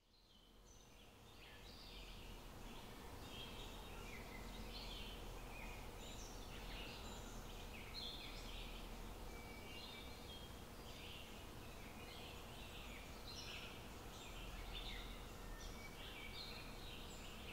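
A faint chorus of small birds chirping and singing, with many short calls overlapping throughout, fading in over the first couple of seconds. A low steady hum runs underneath.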